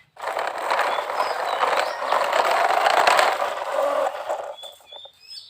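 Plastic toy truck rolling with a rough, continuous rattle for about four and a half seconds, then stopping; faint bird chirps near the end.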